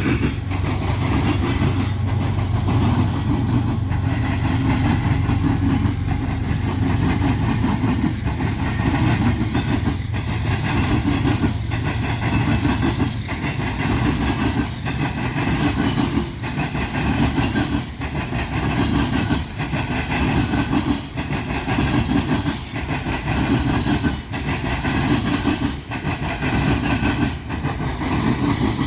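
Freight train rolling past. Diesel locomotive engines drone for about the first dozen seconds, and railcar wheels clack steadily over the rail joints and crossing diamond.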